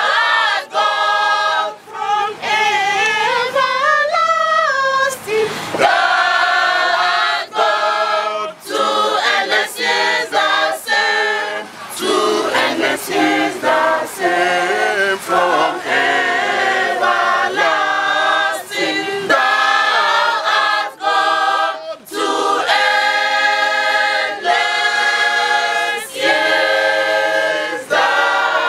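Mixed choir of men's and women's voices singing a hymn unaccompanied, phrase after phrase with brief breaths between them.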